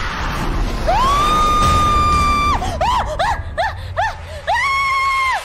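A woman screaming: one long high scream, then a run of short shrieks, then another long scream that cuts off sharply.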